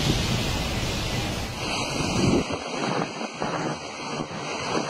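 Cyclone-force wind and heavy driving rain: a dense, steady rush of noise with gusts buffeting the microphone. About a second and a half in it cuts to a different recording of the storm, with less low-end buffeting.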